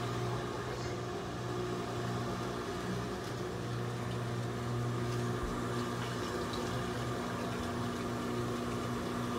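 Steady low hum of a running motor or appliance, holding one fixed pitch without change.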